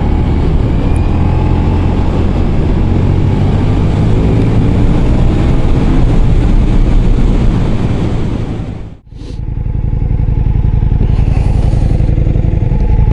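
Ducati Diavel V4's V4 engine on the move, with wind rush and the revs rising and falling. About nine seconds in the sound drops out for a moment, and the engine is then heard running more steadily, likely idling.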